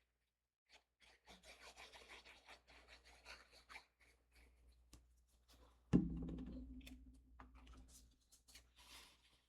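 Paper and card pieces being handled and rubbed on a work table, with a soft rustling. About six seconds in there is one sharp knock on the table, followed by a short fading hum.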